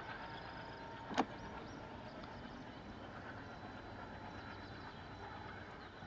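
Diesel-hauled passenger train running away into the distance: a faint, steady rumble with no horn. A single sharp click sounds about a second in.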